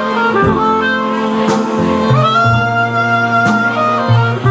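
A small swing jazz band playing a slow instrumental passage: clarinet and brass hold long melody notes over plucked double bass and banjo, with a sharp drum hit about every two seconds.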